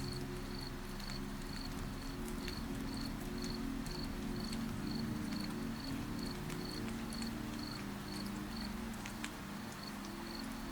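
Crickets chirping in a steady, even rhythm of about two chirps a second, over soft, sustained low synth-pad tones, with scattered faint ticks like light drips.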